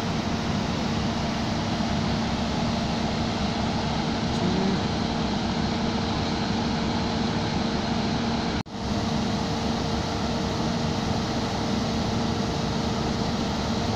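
Steady mechanical drone of a train's diesel engine running, with a steady low hum in it, broken by a momentary dropout a little over halfway through.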